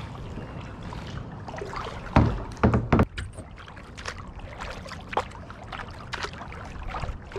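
Kayak paddling: a double-bladed paddle dipping and splashing through the water beside a plastic kayak, with three loud, sharp thuds about two to three seconds in and a few fainter ones later, over a steady low rumble.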